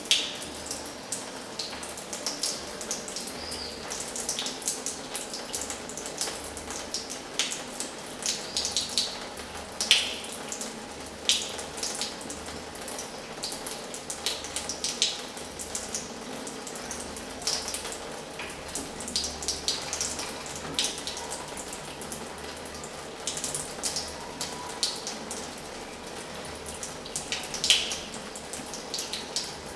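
Water running from an old washhouse tap: a steady rush with irregular sharp splashes and drips throughout.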